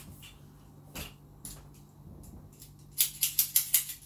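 Parts of a budget camera tripod clicking and rattling as it is handled, with scattered clicks and a quick run of about six sharp clicks around three seconds in.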